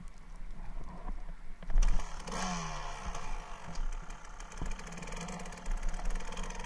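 1999 Kawasaki KDX220R's two-stroke single-cylinder engine, heard muffled through the camera's waterproof case: it revs up sharply about two seconds in, the revs then fall away, and it keeps running.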